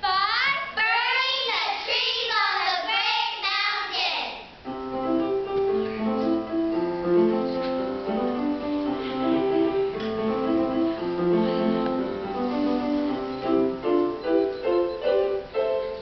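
Children's voices singing with a wavering, sliding pitch, then about four and a half seconds in a keyboard starts playing a tune with chords.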